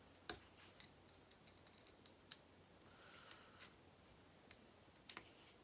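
Faint, scattered clicks and taps of small plastic kit parts and a screw being handled and fitted, about half a dozen separate clicks with a brief soft scrape partway through.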